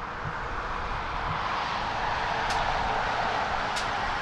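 Boeing 777-200ER's GE90 jet engines at taxi power: a steady rushing whine that grows slightly louder as the airliner taxis. Two brief high ticks, about halfway through and near the end.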